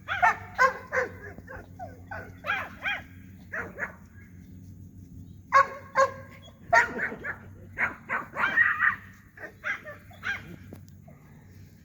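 Small dogs barking in quick, high-pitched yaps, in two flurries with a pause of about a second and a half between them.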